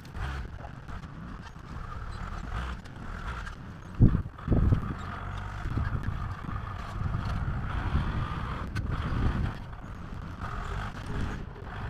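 Farm machine's engine running with an uneven low rumble while it works dirt, with two heavy knocks about four seconds in.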